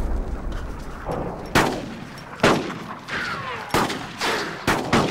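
A low rumble fading away, then a string of about five single gunshots, each sharp with a short echoing tail, spaced unevenly, with a falling whine between two of them.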